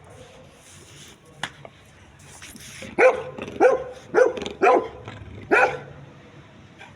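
Labrador dog barking five times, starting about three seconds in, four in quick succession and a last one a little later.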